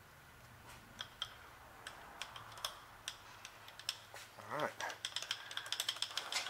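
Scattered light clicks and ticks of small metal parts and brass chips being handled at a milling-machine vise, coming thick and fast in the last second and a half. A short pitched sound breaks in about four and a half seconds in.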